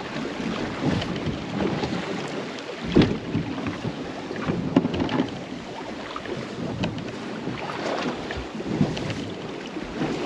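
Wind buffeting the microphone on a small boat at sea, with water slapping the hull and scattered irregular knocks, the sharpest about three seconds in.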